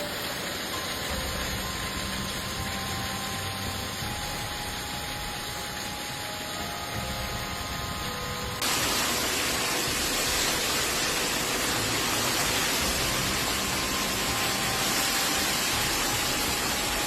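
Hailstorm: a steady, dense rush of hail and rain falling, jumping louder and brighter after a cut about nine seconds in.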